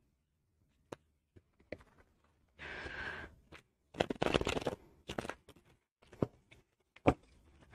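Tarot cards being shuffled by hand: scattered single clicks, then a dense run of quick papery flicks and taps about four seconds in. A breathy exhale comes about three seconds in.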